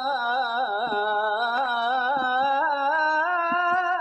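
Harput-style Turkish folk song: a single ornamented melodic line with a wavering vibrato, held on without a break between sung verses.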